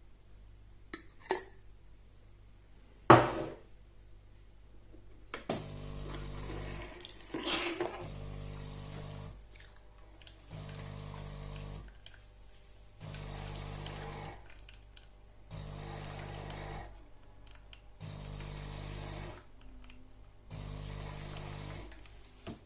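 Automatic espresso machine: a couple of clicks and a sharp knock, then its pump hums in repeated pulses, each lasting about a second and a half and coming about every two and a half seconds.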